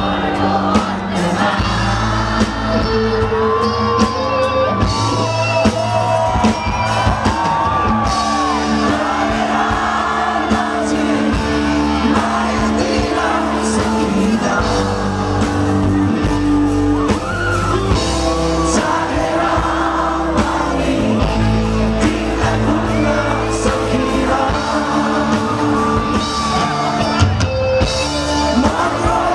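Live rock band performance: a male singer sings into a microphone over electric guitar and drums, steady and loud throughout.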